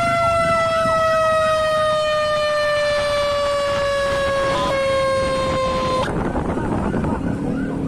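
A siren's long, steady tone glides slowly down in pitch and cuts off abruptly about six seconds in. Underneath it, other sirens keep up a quicker rising-and-falling warble.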